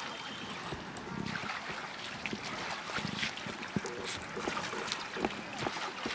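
Wet hands squeezing and kneading a lump of sticky dough bait, giving scattered soft squelching clicks over a steady background hiss.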